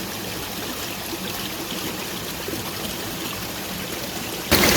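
Steady flowing water, a small stream trickling along. Near the end the sound turns abruptly louder.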